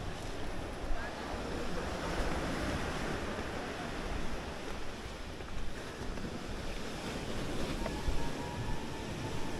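Surf washing onto a sand beach, with wind buffeting the microphone. A thin steady tone joins near the end.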